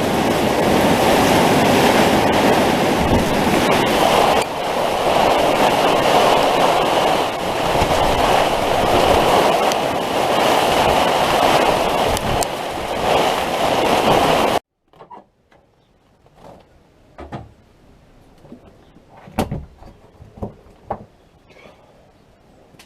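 Loud, steady hiss of heavy rain that cuts off suddenly about 15 seconds in. After that it is quiet, with scattered clicks and knocks of tools being handled.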